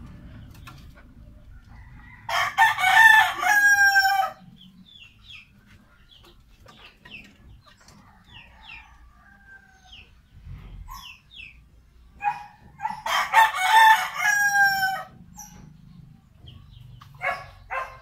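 Rooster crowing twice, about ten seconds apart, each crow about two seconds long and ending on a long, slightly falling note. Softer short clucks come between the crows, with a quick run of them near the end.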